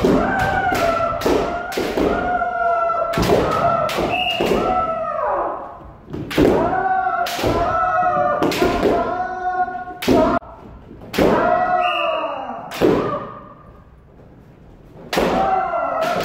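Kendo practice: repeated drawn-out kiai shouts whose pitch bends downward, over many sharp cracks of bamboo shinai strikes and stamping footwork. The din eases briefly about six seconds in and again near the end.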